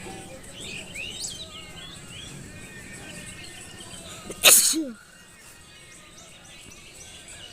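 A single loud human sneeze about four and a half seconds in: a sharp burst that ends in a short falling vocal tail.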